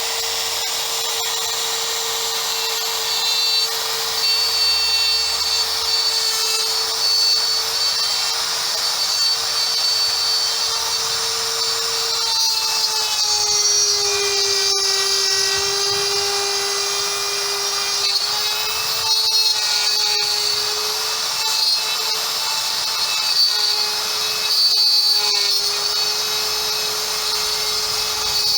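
CNC router spindle running at high speed, cutting wood, with a steady high whine over a hissing cutting noise. The whine dips a little in pitch about halfway through and wavers slightly after that.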